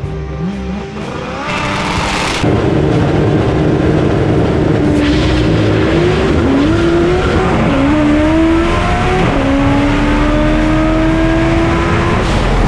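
Drag race car launching about two seconds in and accelerating hard at full throttle. The engine note climbs, drops sharply at each of three gear changes, and climbs again, ending shortly before the close.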